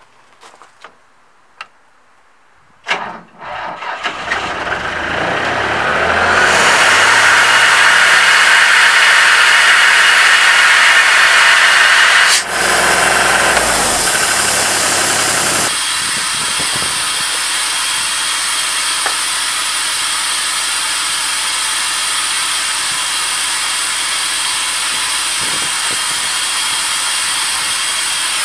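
Diesel air compressor starting a few seconds in after a few clicks, its engine running up to speed into a loud, steady rushing run. About halfway through it drops to a lower steady run with a high hiss of air.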